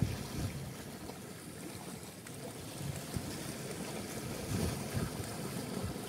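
Wind gusting across the microphone over water washing against a small boat in a rough sea, heard as an uneven low rumble with a steady hiss.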